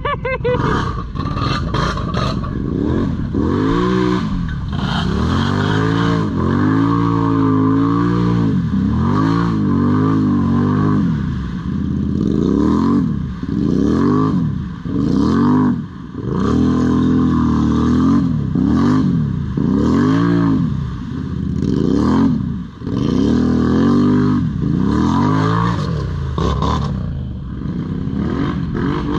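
ATV engine revved hard and let fall over and over, rising and dropping about every two to three seconds.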